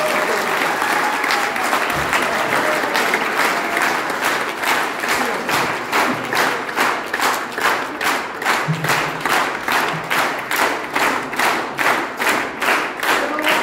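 Audience applauding: scattered applause that settles about four seconds in into steady clapping in unison, about two and a half claps a second.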